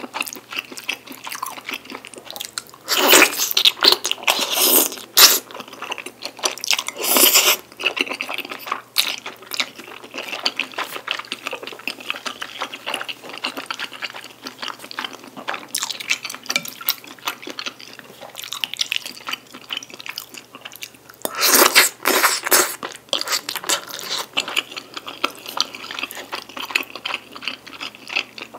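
Close-miked wet chewing and eating of saucy black-bean-sauce tteokbokki with wide glass noodles. There are louder spells of eating about three to five seconds in, again around seven seconds, and past twenty seconds.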